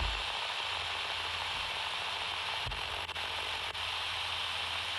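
Steady static hiss from the HamGeek ATS200 receiver's speaker as it scans for a station, with a few faint clicks.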